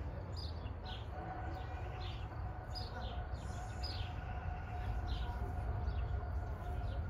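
A bird repeating a short, high chirp that falls in pitch, about once a second, over a steady low rumble. A faint steady hum comes in about a second in and holds.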